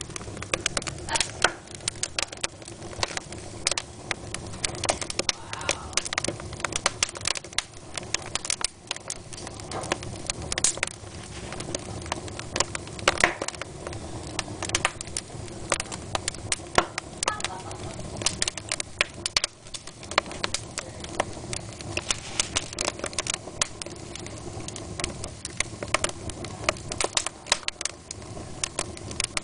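Wood fire in a fireplace crackling, with frequent sharp snaps and pops over a steady low rush of burning, the loudest cluster of pops about halfway through.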